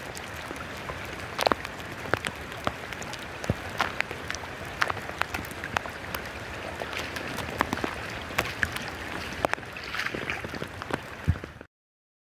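Heavy monsoon rain: a steady hiss with many sharp, irregular drop impacts. It cuts off abruptly near the end.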